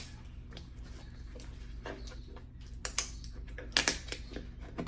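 Scattered clicks, taps and short scratchy rasps of hands working at a heavily taped package to get it open, the loudest rasps about three and four seconds in.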